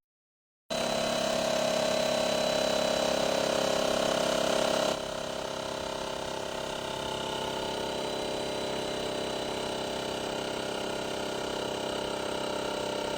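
Small built-in air compressor of a portable jump starter running with a steady motor drone. It starts abruptly under a second in and drops somewhat in level about five seconds in.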